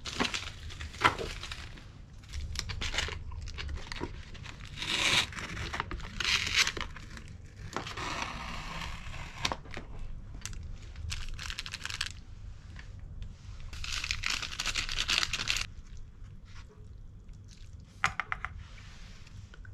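Plastic seasoning sachets and the foil lids of instant noodle cups crinkling and tearing in a series of bursts as they are opened and handled.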